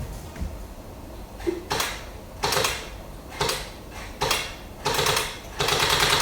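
M901C AK-47 electric BB gun firing on full auto, a rapid mechanical rattle of shots. It fires five short bursts, then a longer burst near the end.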